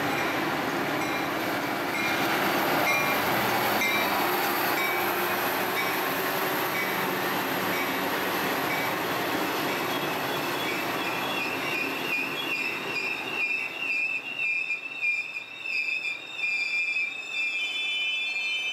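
A Metra commuter train rumbling along the tracks. From about halfway its wheels and brakes squeal in high, wavering tones as the sound slowly fades.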